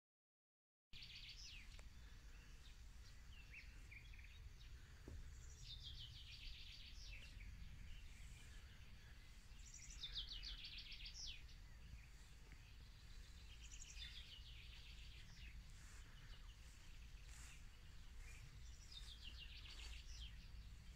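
Faint garden ambience that begins about a second in: a songbird sings a short, quick, falling trilled phrase every few seconds over a low steady rumble.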